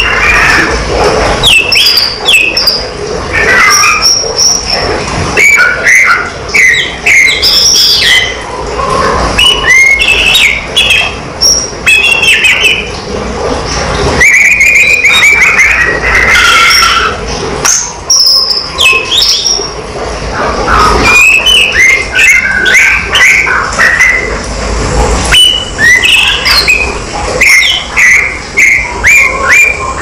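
Caged tledekan flycatcher singing: phrases of short, clear whistled notes that slide up and down, repeated with brief pauses.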